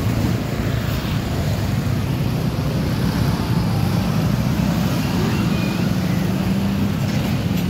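Street traffic: motorcycle engines running and passing close by with a steady low hum.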